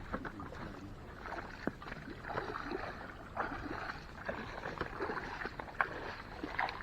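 Water splashing and lapping irregularly against a small fishing boat, with small knocks.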